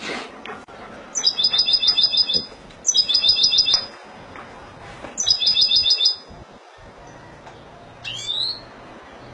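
European goldfinch singing: three rapid trilled phrases of about a second each, with short pauses between them, then a single short rising call near the end.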